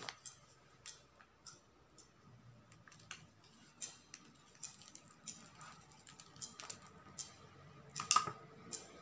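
Scattered light clicks, taps and crinkles from hands working ribbon and a hot glue gun on a wicker basket, with one sharper click near the end.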